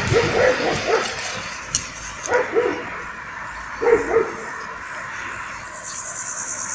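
A dog barking: three groups of short barks in the first four seconds, then a pause.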